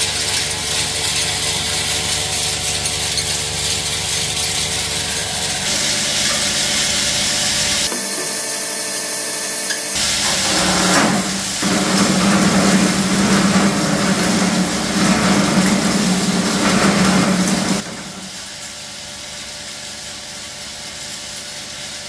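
Homemade four-knife disc wood chipper, belt-driven by an electric motor, running steadily. About ten seconds in, a long branch is fed in and chipped, and the sound turns louder and coarser with a deep steady tone for about seven seconds. Near the end the chipper runs on empty, quieter.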